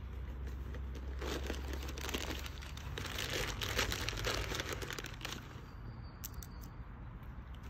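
A plastic crisp packet crinkling and rustling as it is handled, for a few seconds from about a second in, followed by a few light ticks.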